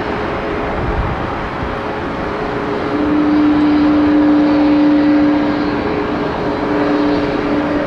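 Boeing 777-200 jet engines running at taxi power up close: a steady rushing noise with humming tones. A strong low hum comes in and grows louder about three seconds in.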